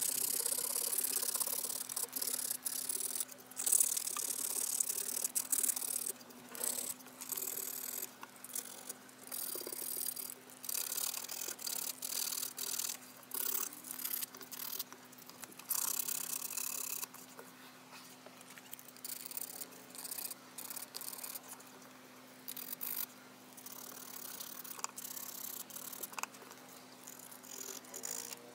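80-grit sandpaper rubbed by hand over a metal wheel rim: dry, scratchy strokes of uneven length and pace, sanding out deep scratches so that filler will grip. A faint steady hum lies underneath.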